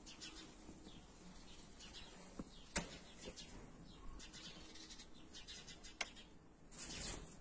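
Faint, scattered short high chirps of a caged European goldfinch, with two sharp clicks about three seconds in and about six seconds in.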